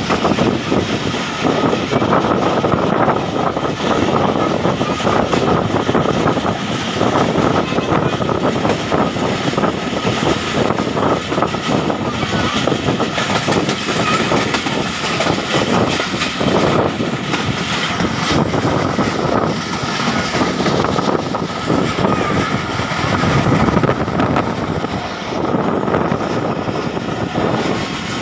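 Passenger train running at speed, heard from aboard a coach: a steady rumble and clatter of wheels on the rails, with a faint steady whine above it.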